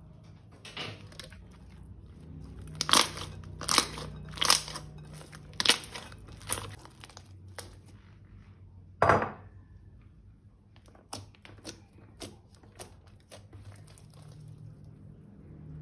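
Crunchy slime squeezed and pressed by hand, giving a series of sharp crackling crunches. There are about six in the first seven seconds, a louder, longer one a little past the middle, then fainter clicks.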